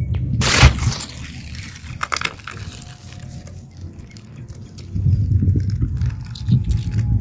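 Small pebbles clicking and crunching against each other as a hand picks stones up from a bed of river pebbles and gravel, with a loud rustle about half a second in and scratchy handling noise from about five seconds in.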